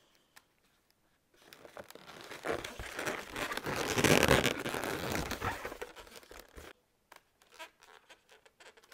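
Latex twisting balloons rubbing against each other as a 260 balloon is worked into a balloon sculpture: a dense stretch of rubbing from about a second and a half in until nearly seven seconds in, loudest in the middle, then a few light taps near the end.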